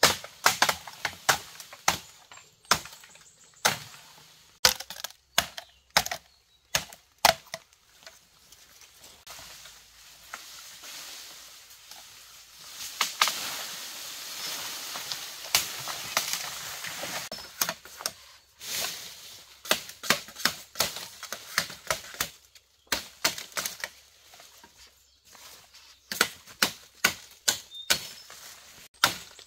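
Machete chopping bamboo: runs of sharp, quick strikes on the stems, with a stretch of rustling from the bamboo leaves in the middle.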